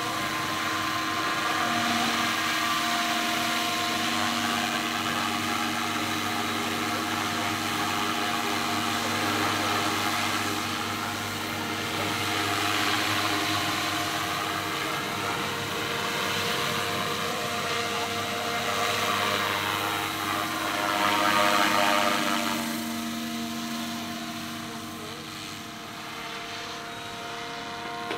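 Radio-controlled scale model Bell UH-1N / 412 twin Huey helicopter in flight: a steady whine of several pitches under the rush of its rotor blades. It swells as the model passes closer around the middle, is loudest about three-quarters of the way through, then fades a little near the end.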